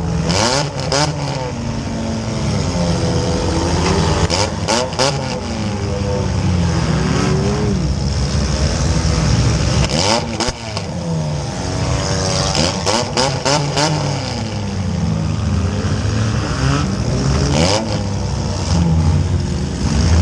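A compact demolition derby car's engine revving up and down as it is driven hard, heard from inside the stripped cabin, with sharp metallic bangs and knocks in several short clusters.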